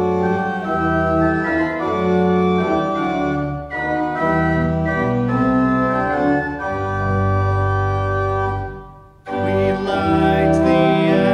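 Organ playing held chords of a hymn introduction. The phrase ends and breaks off about nine seconds in, then the music starts again, and singing of the Advent candle-lighting hymn comes in near the end.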